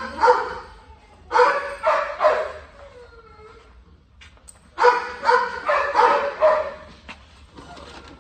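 A dog barking and yipping in short bursts: a few barks at the start, a cluster just after a second in, and a longer run about five seconds in.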